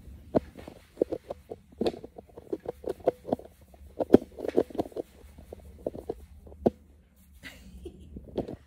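Handling noise from a phone being moved around in the hand: an irregular run of soft knocks and rubs on the microphone that thins out near the end.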